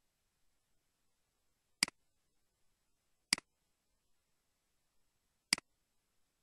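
Computer mouse clicks: three sharp clicks about a second and a half to two seconds apart, each with a quick, softer second tick right after it.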